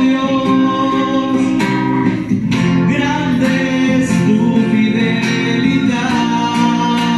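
Live acoustic guitar strumming under a singing voice: a serenade song played in the room.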